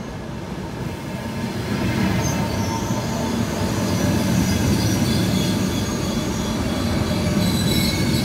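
A Trenitalia Frecciargento high-speed electric train rolls into the platform and passes close by, a heavy rumble from wheels and carriages that builds over the first couple of seconds, with high wheel squeals on and off, loudest near the end as it slows for the stop.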